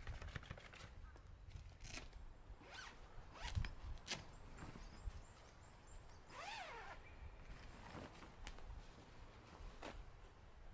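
Quiet rustling, scraping and light knocks of a canvas tent being handled and pitched by hand, with a brief arching rasp about six seconds in. A low rumble sits underneath.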